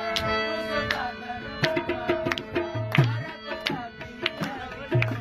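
Background music with sustained tones and sharp percussion strikes.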